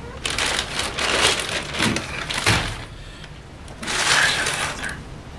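Large plastic bag rustling and crinkling as it is handled, in several bursts over the first few seconds, with a second burst of crinkling about four seconds in.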